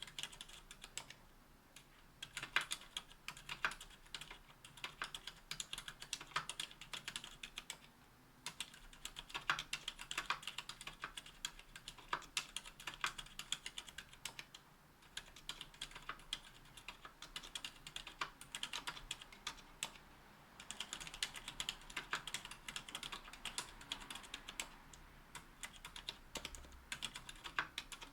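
Continuous typing on a mechanical keyboard with Cherry Silent Red linear switches, GMK keycaps and an aluminium plate and case: rapid, soft, muted keystrokes in runs, with short pauses between bursts.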